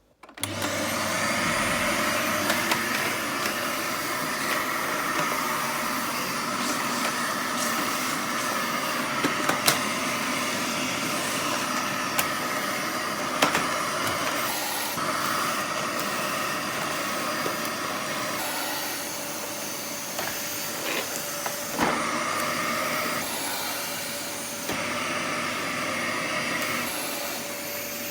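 Vacuum cleaner switching on about half a second in and then running steadily, its tone shifting now and then, with a few light clicks and knocks.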